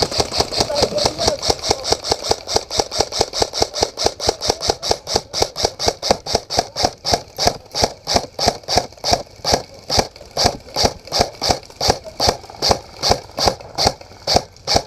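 Quad bike (ATV) engine running with an even pulsing beat that slows from about five to about three beats a second.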